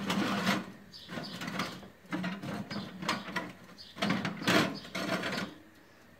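Clay tile baking dish scraping and clinking on the metal wire rack of a countertop electric oven as it is pushed in and shifted into place, in a run of short rasping scrapes that die away near the end.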